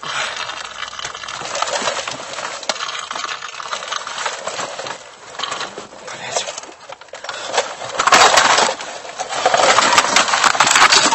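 Loud rustling and crackling close to a dashcam's microphone, with scattered clinks, as people move about and brush against it inside a crashed car. The noise grows louder in two bursts near the end as the camera is knocked out of position.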